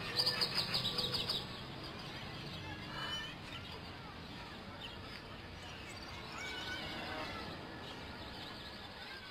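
Birds chirping in short calls over quiet outdoor background noise, after a brief burst of rapid sharp strokes in the first second or so.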